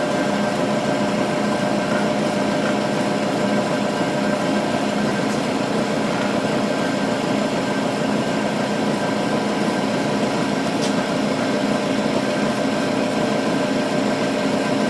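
Milling machine running at a steady pitch, its end mill cutting an arc slot in a metal plate as the table is fed by hand. The sound is an even hum of several held tones.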